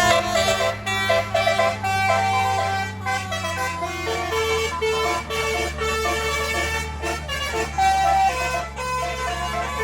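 A bus's telolet Basuri multi-tone horn playing a quick tune of short stepped notes, over the steady low drone of the bus engine.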